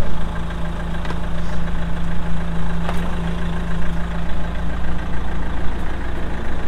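Car engine idling steadily, a car that had stood unused for about a year. A couple of faint clicks over it.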